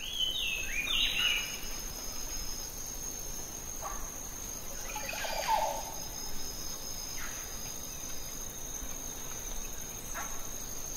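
Natural outdoor ambience: insects trilling steadily at a high pitch, with birds calling now and then. There is a falling run of notes in the first second or so, then a few short calls spread through the rest.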